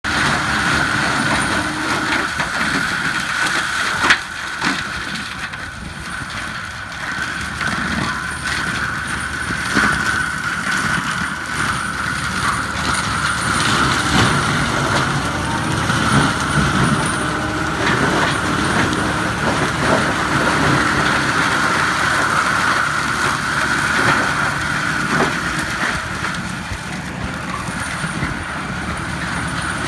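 Fendt 936 tractor's diesel engine running under load with an FAE forest mulcher's rotor spinning, shredding young pine trees, with a steady high whine and scattered cracks and knocks of wood being chipped. A sharp crack stands out about four seconds in.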